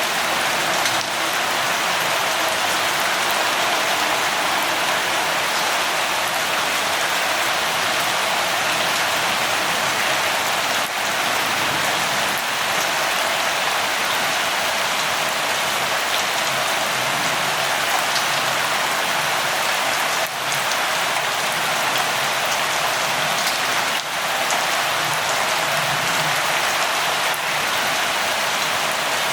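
Steady rain falling: an even, unbroken hiss with scattered sharper ticks of individual drops.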